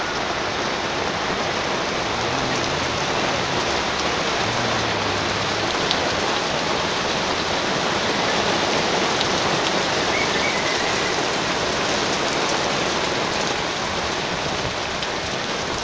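Steady rain falling on wet paving stones, an even hiss without a break.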